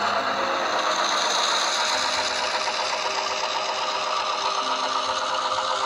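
DCC sound decoder in a 00 gauge model CIE 121 class diesel locomotive, playing a steady diesel engine running sound through its small onboard speaker as the model approaches, over background music.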